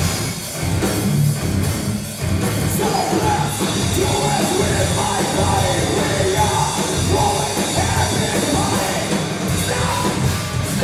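Rock band playing live: electric guitar, bass guitar and drum kit, with a singer's voice over them.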